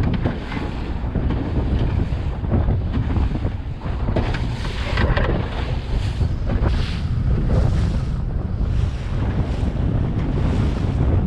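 Strong gusty wind buffeting the microphone, a heavy low rumble that swells and eases every second or so, over the wash of choppy harbour water around a small boat.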